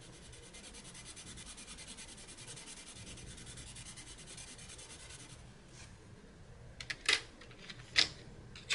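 Black Widow Monarch colored pencil scribbling back and forth on paper in rapid, even strokes, laying down a colour swatch, for about five seconds. Two sharp clicks follow near the end.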